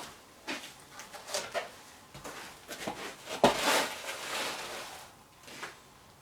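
Scattered light knocks and scrapes of things being handled in a small workshop, with a sharp knock about three and a half seconds in followed by about a second of scraping hiss.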